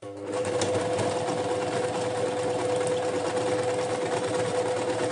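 Domestic electric sewing machine starting up and running steadily at speed, with a steady whine, stitching through knit fabric laid on a strip of newspaper.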